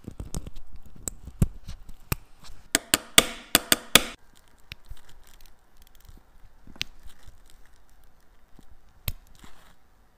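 Sharp little clicks and handling noise as the crown of an Omega Constellation Co-Axial wristwatch is fitted and then worked by hand. The clicks are densest and loudest about three to four seconds in, then come only now and then.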